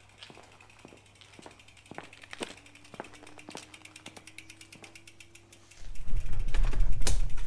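Rear hub freewheel of a Trek Checkpoint gravel bike ticking rapidly as the wheel turns without pedalling, with stronger clicks about twice a second. About six seconds in, a loud low rumble sets in over the ticking.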